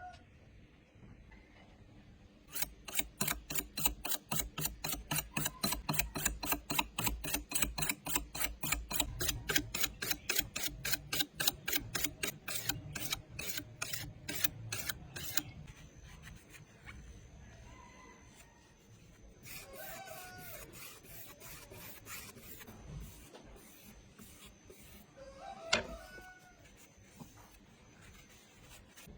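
Knife being sharpened: quick, even scraping strokes of the blade across a sharpener, several a second, that stop about halfway through. Softer scraping follows, then a single sharp click near the end.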